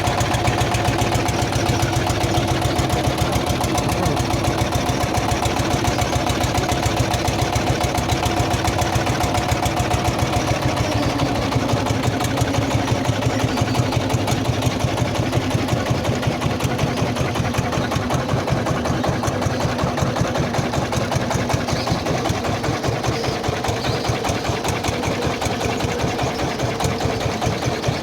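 An engine running steadily with a fast, even beat, its note dropping a little about eleven seconds in.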